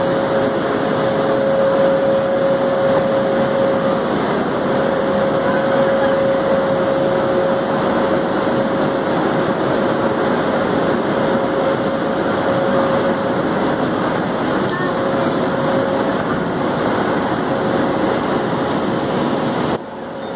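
WAP-7 three-phase electric locomotive running close by, a loud steady hum and rush of machinery with a steady whine held over it, as it creeps up to buffer against the coaches for coupling.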